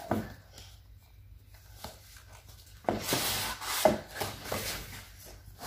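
Pages of a large picture book being turned by hand: a quiet pause, then a stiff paper rustle and rub from about three seconds in, with a couple of short ticks.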